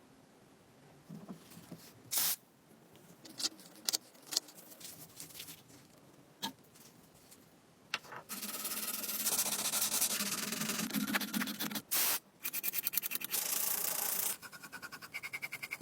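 A few scattered light clicks and knocks, then about eight seconds in fast, steady abrasive rubbing strokes on a stove part, with a brief pause near the twelve-second mark.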